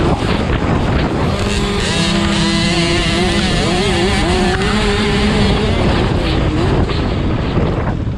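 Cobra Jr 50cc two-stroke motocross bike running at high revs, its pitch rising and falling, with other 50cc bikes racing close by.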